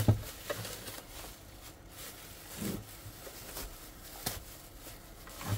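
Thin clear plastic bag crinkling and rustling as hands pull it open and off a portable radio, with irregular sharp crackles, the loudest just after the start.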